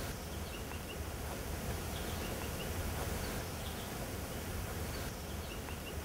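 Woodland ambience: a steady background hiss and low rumble, with a distant bird repeating a short call about every two seconds, a quick rising note followed by three short chips.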